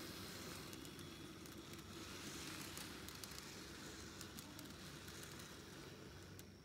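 N-gauge model train coaches rolling past on a curved track, their wheels ticking and clicking faintly with a steady rolling hiss. The sound drops away near the end as the last coach moves off.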